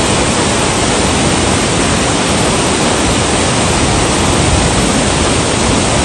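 Waterfall plunging into a round, rock-carved pool: a loud, steady rush of water.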